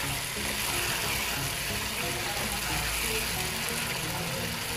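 Cashew paste and onion paste sizzling in hot oil in a frying pan as a spatula stirs them, scraping and rattling against the pan.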